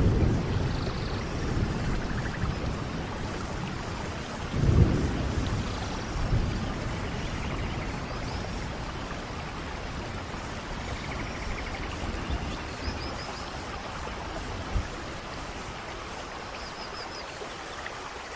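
Steady rain in a rainforest thunderstorm, with low rolls of thunder at the start and again about five seconds in, then easing to rain alone.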